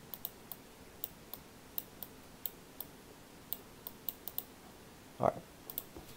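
Irregular sharp clicks of a computer pointing-device button, pressed and released with each pen stroke as words are handwritten on a slide, about two or three a second with short gaps.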